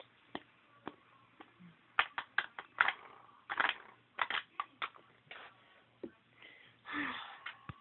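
Handling noise of small plastic toy figurines being moved and set down: a run of short clicks and taps, thickest about two to five seconds in, with a brief rustle near the end.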